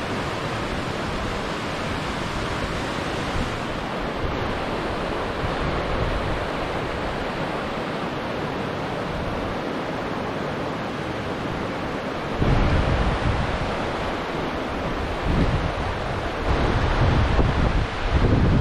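Fast mountain river rushing over rocks and rapids, a steady loud rush of water. From about two-thirds in, gusts of wind buffet the microphone with an uneven low rumble.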